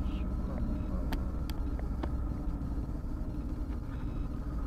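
Car driving on the road heard from inside the cabin through a dashcam: a steady low rumble of engine and tyre noise, with a few faint clicks.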